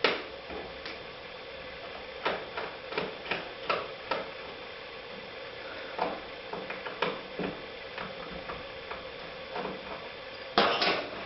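Irregular small clicks and ticks of a tiny eyeglass screwdriver working screws out of a laptop's plastic screen bezel, with a short louder handling rustle near the end.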